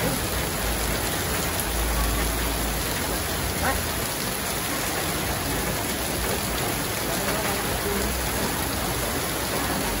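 Heavy rain pouring down in a steady hiss, with water spilling off a roof edge.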